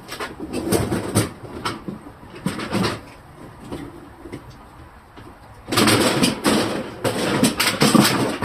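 Plastic refrigerator parts and items being handled and pushed into place, clattering and scraping in two spells of knocks.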